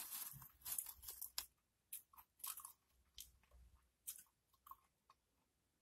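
Doritos tortilla chips crunching as they are handled and chewed: a dense run of crunching in the first second and a half, then scattered single crunches.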